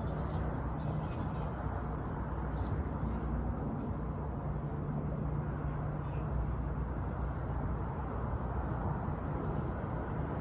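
Insects chirping: a high-pitched pulse repeating evenly, about four times a second, over a steady low rumble.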